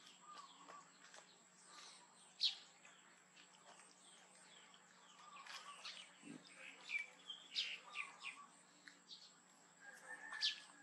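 Faint, scattered chirps of small birds.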